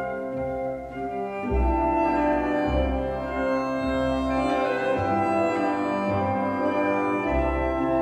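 Orchestral background music: slow sustained chords from strings and brass over a low bass, changing every second or two.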